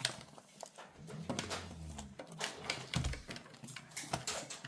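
Irregular clicks and taps as a ring binder and snap-fastened budget wallets are handled and set down on a table, with a brief low hum about a second in.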